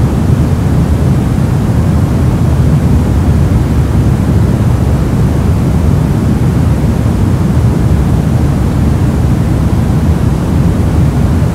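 Steady soft noise, deep and even, with most of its weight in the low end and only a little hiss up top.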